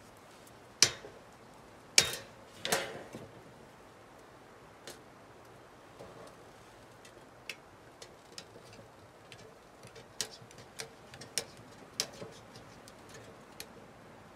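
Three sharp hatchet blows on a wooden chopping block within the first three seconds, followed by a scattered run of lighter taps and clicks.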